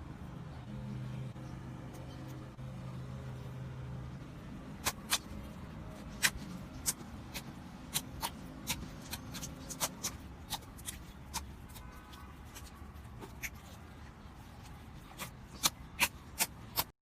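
Slime being handled, giving scattered small sharp clicks and pops over a faint low hum; the clicks begin about five seconds in and come more often near the end.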